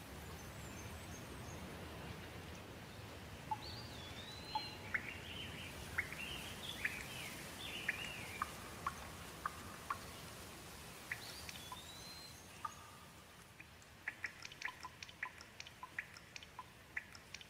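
Faint bird chirps and short whistled, gliding calls over a steady low background rumble, with a quicker run of short chirps near the end.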